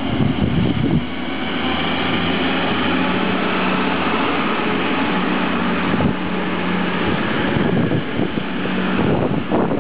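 DB Class 612 diesel multiple unit passing: its diesel engines running with a steady low hum over the rumble of wheels on rails, with a few sharp wheel clicks over the track.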